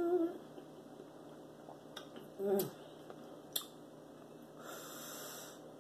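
Close-up eating sounds from a seafood boil of mussels, shrimp and potato: a held "ooh" trails off at the start, then quiet chewing with a few sharp mouth clicks. A short "mm" comes about two and a half seconds in, and a breathy rush of air comes near the end.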